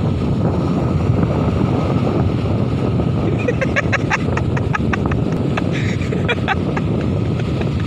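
Wind rumbling on the microphone over the steady wash of sea surf breaking on the shore. From about three and a half seconds in to about six and a half seconds, a quick run of short, sharp high sounds cuts in over the noise.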